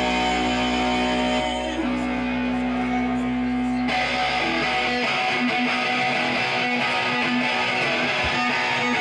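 Live rock band with electric guitars, bass and drums played through a PA. A held, ringing chord over a sustained low bass changes about four seconds in to brighter strummed guitar, and the deep bass drops out soon after.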